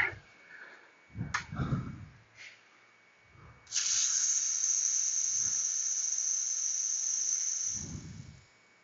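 A steady hissing jet lasting about four seconds, starting a little after three and a half seconds in and cutting off near the end, with a few low knocks of handling before and after it.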